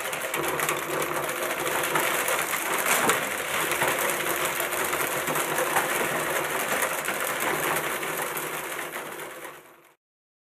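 Electric printing adding machine clattering continuously and fast as its keys are punched and its printer drives the paper tape, with a steady motor drone underneath; it fades out near the end.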